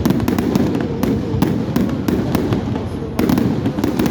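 Large fireworks display: many sharp bangs of bursting shells in quick succession over a steady low rumble of further explosions.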